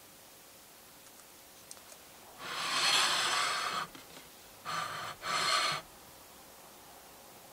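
A ceramic plate sliding across a countertop as it is pushed and turned by hand: one scrape of about a second and a half, then two short scrapes close together.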